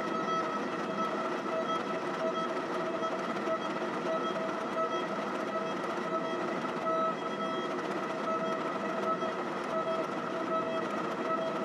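Hydraulic forging press running with a steady, even-pitched whine over a hiss as it squeezes a hot forge-welded Damascus billet in a squaring die.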